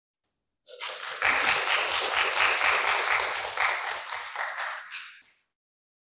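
Church congregation applauding: clapping starts a little under a second in, swells, and dies away about five seconds in.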